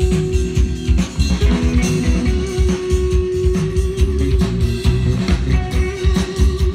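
Live band music through stage PA speakers: electric guitars and a drum kit playing a steady beat, with a long held note over the top.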